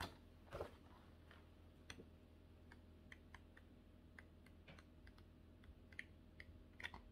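Pages of a craft paper pad being leafed through: faint, scattered light ticks and rustles of paper, a dozen or so spread irregularly, against near-silent room tone.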